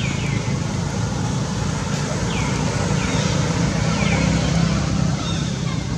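Steady low rumble like an engine running nearby, with short, high chirps that fall in pitch coming about once a second.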